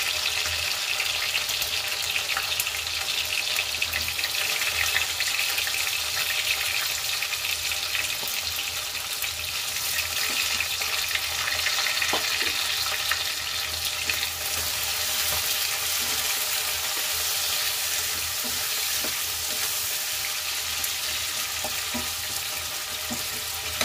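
Chopped red onions sizzling in hot oil in a nonstick kadhai: a steady frying hiss. In the second half a wooden spatula stirs them, adding a few light ticks against the pan.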